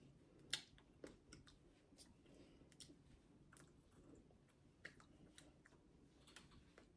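Near silence with faint, scattered clicks and light taps from hands and mouth during sign language, the sharpest about half a second in.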